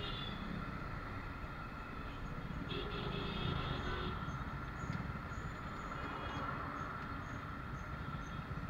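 Steady road noise from a motorcycle slowing almost to a stop in dense city traffic, with the engines of the motorcycle and of the bus and motorbike alongside running close by.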